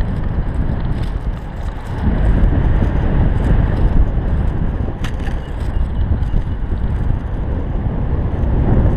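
Wind noise from the airflow of paraglider flight buffeting the camera microphone: a steady low rumble that grows louder about two seconds in.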